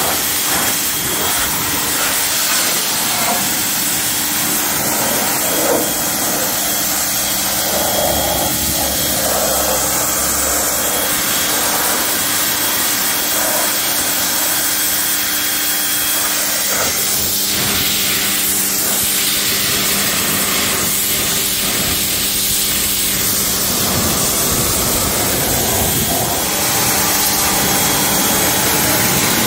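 Craftsman pressure washer running steadily, its motor and pump humming under the hiss of the high-pressure water jet as it sprays a car's wheel and tyre, along the rocker panel and into the wheel well.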